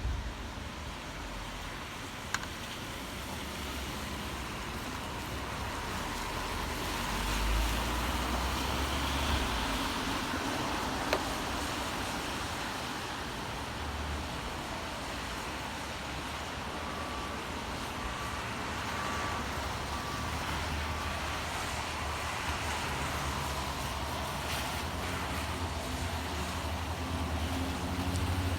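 Steady rain with city traffic hiss, and the low rumble of a passing vehicle swelling about a quarter of the way in.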